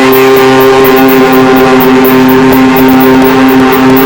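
Loud, harsh droning sound holding two steady pitches with many buzzing overtones, unchanging throughout, as part of the song's backing.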